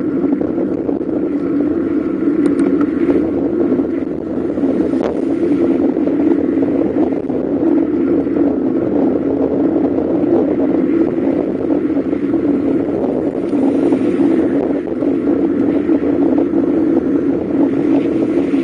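Steady rushing noise of riding a bicycle along a paved road: wind on the microphone mixed with tyre and road noise, with no pitched engine sound.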